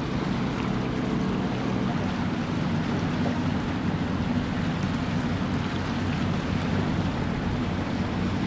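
Steady drone of several motorboat engines out on the water, mixed with wind on the microphone.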